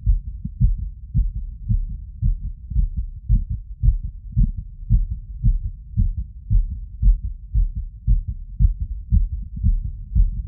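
Human heartbeat heard through a wireless electronic stethoscope: fast, regular lub-dub thuds, dull and low, raised by a 3 km run.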